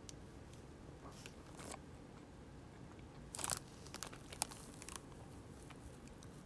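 Faint crinkling and crackling of a snack's wrapper being handled and peeled open, in a few short spells, loudest about halfway through.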